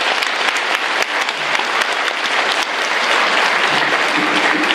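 A large audience applauding, many hands clapping steadily.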